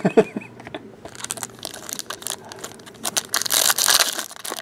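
Crinkling and tearing of a trading-card pack wrapper as it is handled and opened, loudest about three to four seconds in.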